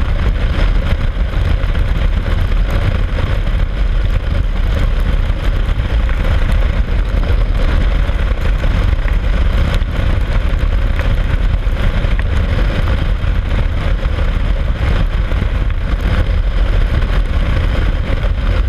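Steady rush of wind and road noise from a motorcycle cruising at highway speed on wet pavement, with a constant low rumble of wind buffeting the microphone and the engine running underneath.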